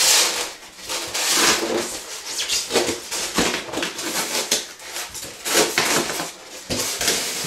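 Large styrofoam packing tier scraping and squeaking against the foam and cardboard of its box as it is worked up and lifted out, in irregular rubbing bursts.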